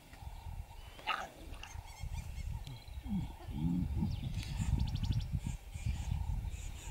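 Lions calling: a short low call, rising and falling, about three seconds in, over a steady low rumble, with a faint high chirp about a second in and a quick ticking trill later.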